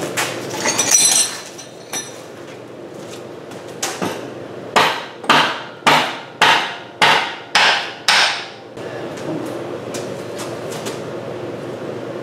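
A run of seven sharp, evenly spaced metal knocks, about two a second, from work at the base of an engine hoist that is holding a car engine. There is a brief metallic clatter near the start, and a steady hum runs underneath.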